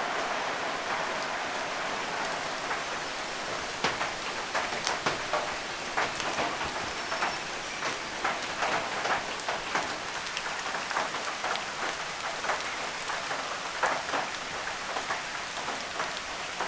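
Steady rain falling, with heavy drops striking a hard surface irregularly, the drops becoming frequent about four seconds in.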